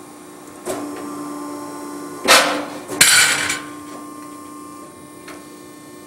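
Scotchman hydraulic iron worker running with a steady hum. Its ram cuts steel flat stock with two loud metallic crunches, the first about two seconds in and the second a second later.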